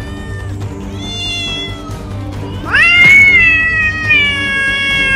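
A cat meowing: a short meow about a second in, then a long, drawn-out meow from about three seconds in that rises and then slowly falls in pitch, over background music.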